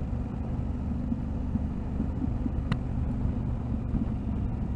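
Yamaha Ténéré 700 parallel-twin motorcycle engine running steadily on the move, a low rumble with road and wind noise over it. A single short tick about two and a half seconds in.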